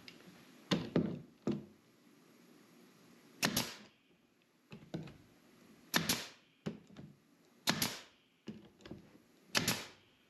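Brad nailer firing brads into the picture-frame trim that locks the stained-glass panels into a wooden door: about six sharp shots roughly every two seconds, most as a quick double snap, with lighter clicks between.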